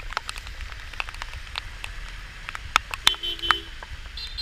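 Raindrops tapping irregularly on a camera housing over steady rain and street noise. A short double beep sounds about three seconds in, and a brief higher beep near the end.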